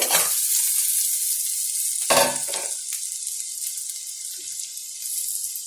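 Hot oil sizzling steadily in a pan of fried onion and peas as boiled potatoes are added, with a brief louder clatter about two seconds in.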